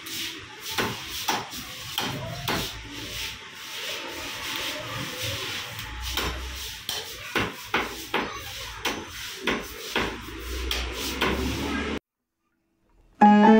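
Knife chopping chicken into small pieces on a wooden chopping block: irregular sharp chops, about one or two a second, that stop about twelve seconds in. Music starts just before the end.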